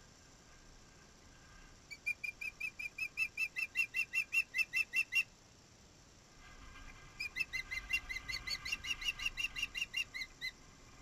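Osprey calling a fast series of short, high whistled chirps, about six a second, in two bouts of roughly three seconds each with a pause between.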